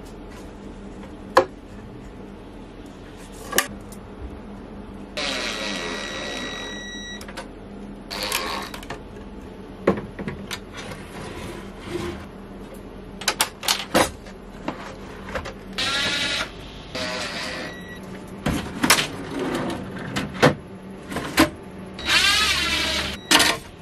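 Cordless drill driving screws in several short runs, its motor whine rising and falling, while kitchen cabinet drawer slides are being remounted. Between the runs come sharp clicks and knocks of the wooden drawer boxes and metal slides being handled.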